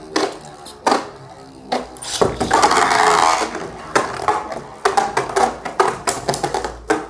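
Two Beyblade Burst spinning tops in a plastic Beyblade stadium. A few sharp clicks come first. About two seconds in, a burst of whirring noise lasts a second or so as the tops are launched. Then the spinning tops clatter, clicking and knocking irregularly against each other and the stadium.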